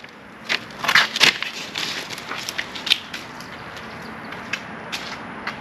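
Irregular crackling and crunching from hands handling sticky, freshly risen two-part pour foam. A dense cluster of sharp clicks in the first second and a half, then scattered single clicks.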